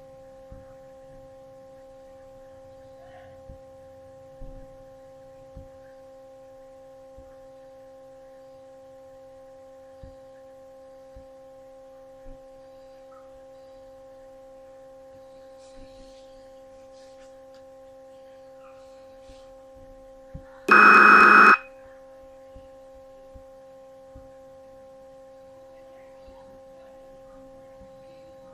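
A steady electronic hum made of several even tones, with faint scattered clicks. About 21 seconds in, a loud harsh buzz lasts under a second, then the hum goes on.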